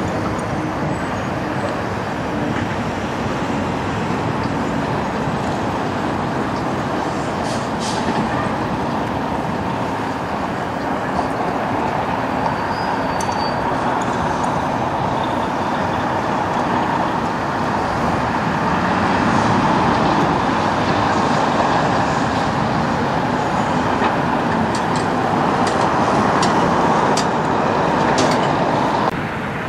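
Steady diesel engine and tyre noise of a semi truck hauling an oversize load on a lowboy trailer, over road traffic. It grows louder in the second half and drops suddenly near the end.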